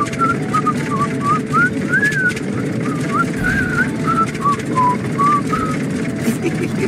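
A person whistling a tune in short notes that slide up and down, over the steady low sound of a tractor engine running.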